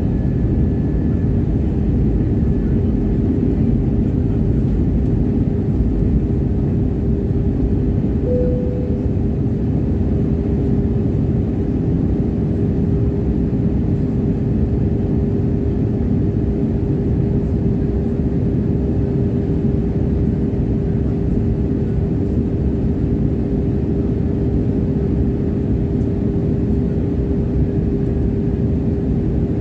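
Jet airliner cabin noise in flight: a steady rush of engine and airflow with a constant hum tone running through it, and a brief higher tone about eight seconds in.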